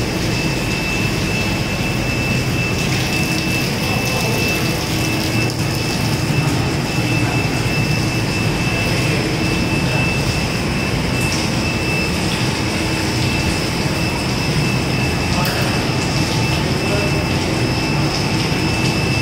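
Steady machinery noise of a poultry processing line: a continuous drone with a constant high whine, while water froths and churns in a stainless steel tank.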